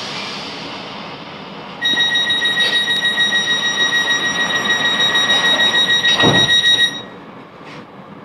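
Class 707 train's door warning beeper sounding a rapidly pulsing high tone for about five seconds while the train stands at the platform, with a dull thump shortly before it stops.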